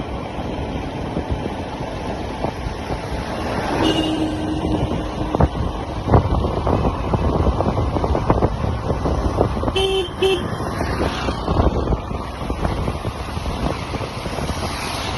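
Steady low rush of a motorcycle ride, broken by many short knocks. A vehicle horn sounds for about a second some four seconds in, and gives two short toots near the ten-second mark.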